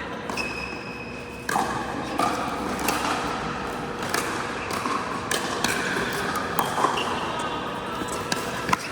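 Pickleball paddles striking a plastic ball in a rally on an indoor court, giving sharp pops at an irregular pace of about one a second.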